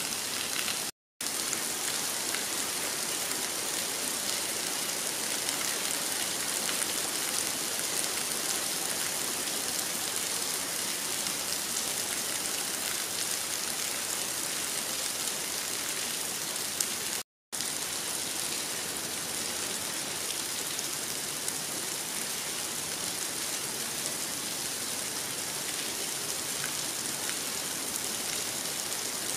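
Steady heavy rain falling, a dense even hiss that drops out to silence for a moment twice, about a second in and again around seventeen seconds.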